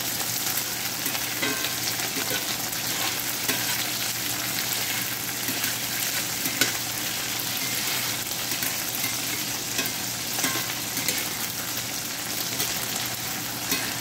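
Rice cake cubes sizzling in hot oil in a cast-iron skillet, with a spatula scraping and clicking against the pan as they are stirred and turned. One sharper knock about six and a half seconds in.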